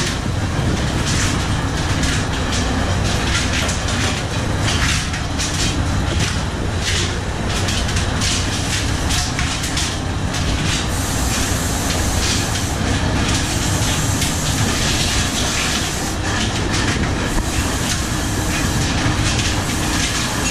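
Steady loud rumble and rush on the deck of a shrimp trawler in rough seas: the vessel's engine drone mixed with wind and waves, with frequent rattling clatter on top.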